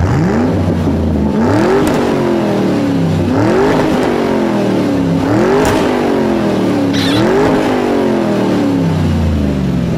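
Electric ride-on toy motorcycle's built-in engine sound effect from its speaker, set off by the throttle: a recorded motorcycle engine revving up and dropping back about every two seconds.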